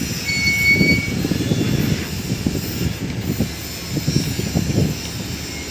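Steel crawler tracks of a Manitowoc crawler crane clanking and creaking as the crane travels, in an uneven run of knocks. A brief high squeal comes about half a second in.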